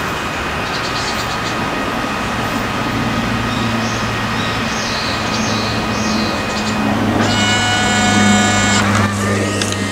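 Fujifilm Instax Share smartphone printer running through a print, a steady mechanical whir with a low hum. About seven seconds in, a high electronic whine joins for under two seconds.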